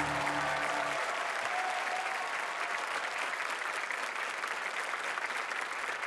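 Audience applauding steadily, over the last held chord of the music, which stops about a second in.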